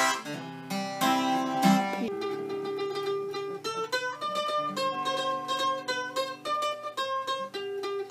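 Harmonica playing held notes over an acoustic guitar for about two seconds, then a mandolin picking a tune, note by note.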